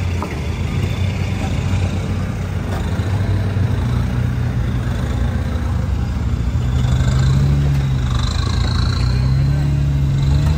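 Jeep Wrangler Rubicon's engine working under load as it crawls up a rock shelf, its note rising as it is given more throttle about two thirds of the way through and again near the end.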